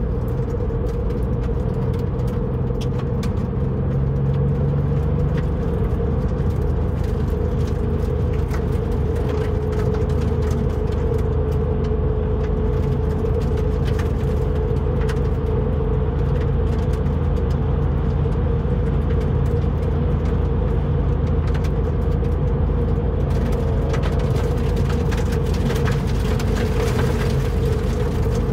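Inside the cabin of a 2002 Porsche 911 (996.2) Cabriolet with Tiptronic automatic, driving at a steady speed: its 3.6-litre flat-six engine running at an even pitch under steady road and tyre noise.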